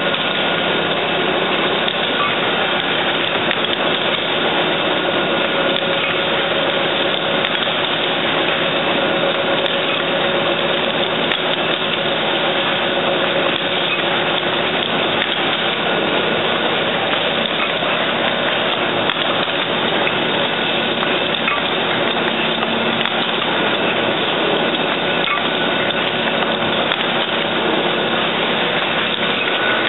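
Automatic hypodermic needle assembly machine running: a steady, dense mechanical clatter and hum with a couple of faint steady tones, unchanging throughout.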